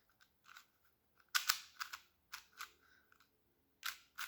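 Plastic speed cube layers being turned by hand: a few sharp clacks at uneven spacing, the loudest about one and a half seconds in and another near the end.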